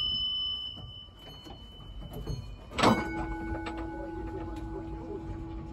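Tram gong struck about three seconds in, ringing on with several clear tones that fade at different rates, the lowest lasting longest. The ring of an earlier strike fades at the start, over the low rumble of the moving tram.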